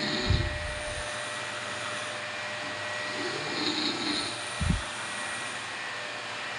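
A person snoring: a rough snore right at the start and another about three seconds in, over a steady rumbling background noise, with two short low thumps.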